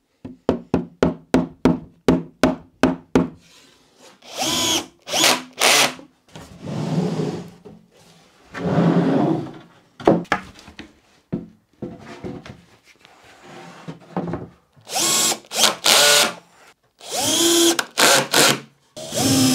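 Cordless drill driving screws into OSB panels in short bursts, its motor speed rising and falling within each run. A quick run of clicks comes in the first few seconds.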